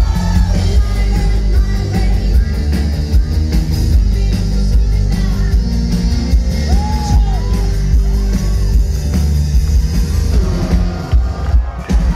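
Loud live rock band playing over a stage sound system: heavy bass and drums with a woman singing.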